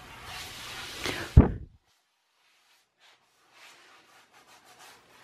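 Hands rubbing and handling a bare pine tabletop panel, with one hard knock on the wood about a second and a half in. The sound then drops away almost to nothing, with a few faint clicks.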